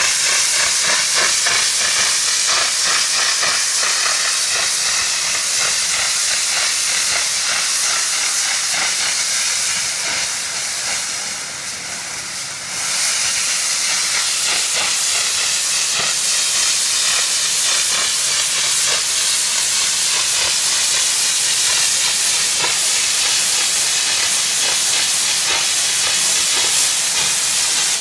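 Saturated steam venting under pressure from the discharge pipe of a homemade gasification boiler: a loud, steady hiss that eases briefly about ten seconds in and then comes back full. The boiler is holding around 125 psi, and its tank is full, so the excess steam is being discharged.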